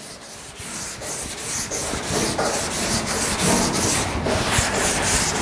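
A hand sanding block with 240-grit paper is stroked back and forth over a grey-primed steel truck fender dusted with dry guide coat. It makes a dry, rhythmic rasp of several strokes a second that starts softly and grows louder over the first second or two. This is block sanding to straighten the panel, cutting the guide coat down to show the low spots.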